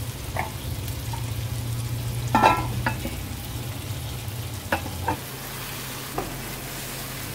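Cooking sounds from an aluminium pot of chicken being smoked with hot coal (dhungar method): a low steady hum under faint sizzling, with a ringing metal clank about two and a half seconds in as the lid goes on. A few lighter clicks follow, and the hum stops about five seconds in.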